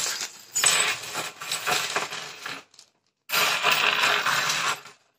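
Small metal furniture screws and fittings rattling and clinking as their plastic packets are handled, in two spells with a short pause between.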